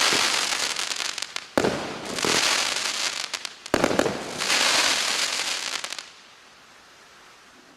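Consumer fireworks battery (cake) firing its last shots: a sharp bang about a second in and another near the middle, each followed by a dense crackling hiss, then dying away after about six seconds.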